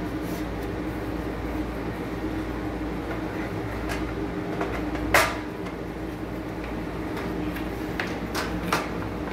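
Knocks of the black lid of a Tefal electric plancha grill being handled and set against its base: one sharp clack about five seconds in and two lighter ones near the end, over a steady background hum.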